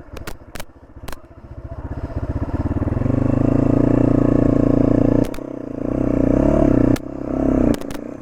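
Motorcycle engine revving up and holding high revs, easing off about five seconds in and then rising again, with a few sharp knocks and clatters.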